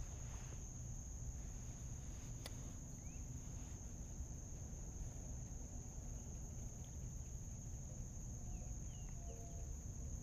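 Insects droning steadily at one high pitch over a low rumbling noise, with one sharp click about two and a half seconds in and a few brief chirps.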